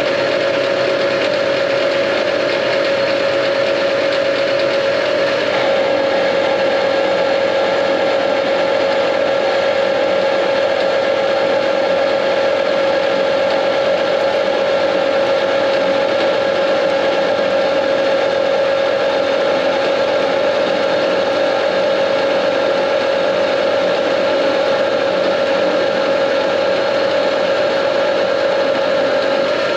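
JFMT metal lathe running with its spindle turning a long shaft between centres: a steady mechanical whine with a strong, even tone. One part of the sound drops away about five seconds in, and the machine carries on.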